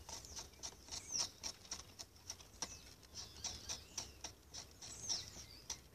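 Knife blade scraping the cambium off the bark-stripped ring of a breadfruit branch: a run of faint, irregular scratchy strokes, a few a second.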